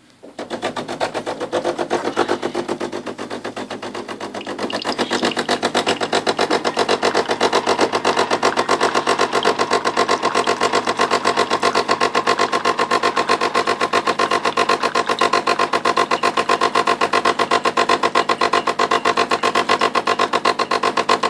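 De'Longhi Magnifica automatic espresso machine's pump buzzing as it pushes hot water through the coffee spouts into a cup, the rinse it runs while heating up. It starts just after the beginning and gets louder about five seconds in.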